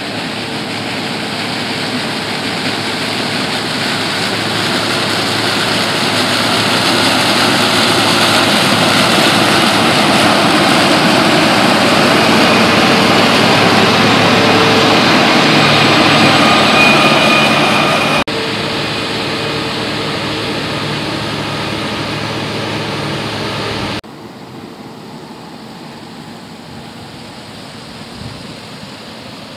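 Claas Lexion 480 combine harvester running while harvesting sunflowers: a steady, loud engine and machinery noise with a whine in it, growing louder over the first 17 seconds or so. It drops abruptly about 18 seconds in and again about 24 seconds in, sounding quieter and farther off.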